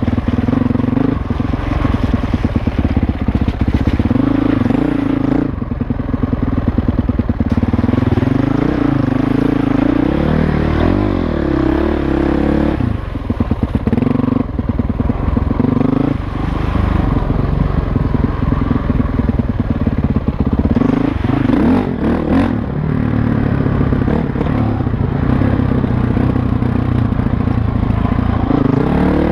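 Dirt bike engine running under load, its pitch rising and falling with the throttle, with brief drops in loudness about five, thirteen and sixteen seconds in.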